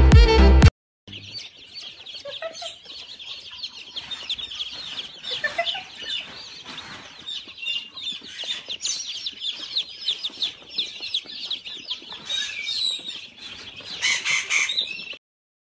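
A crowd of baby chicks peeping: many short, high chirps overlapping without pause, a little louder near the end. A brief snatch of music cuts off in the first second.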